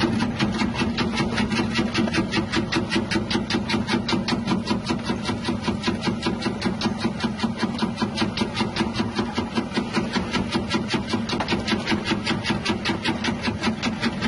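Electric chip-slicing machine with a 180-watt motor running under a steady low hum. Its rotating blades cut in a fast, even rhythm of about five strokes a second.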